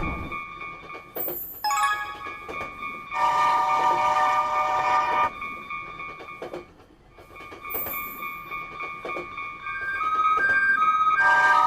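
Animated train horn sound effect: a chord of steady tones blows for about two seconds, then starts again near the end. A quick run of falling electronic tones comes about two seconds in, over a faint steady tone.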